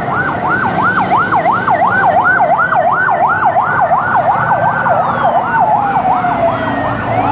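Emergency vehicle siren in a fast yelp, sweeping up and down about three times a second. A second siren wails slowly down in pitch from about four seconds in and starts rising again near the end, over a low traffic rumble.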